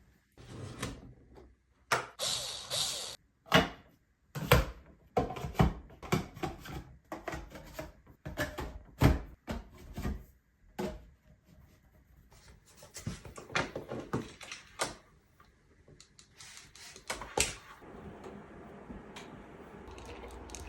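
Irregular knocks, clicks and rubbing of hands-on craft work with PVC pipe pieces and tools, with a short hissing scrape about two seconds in.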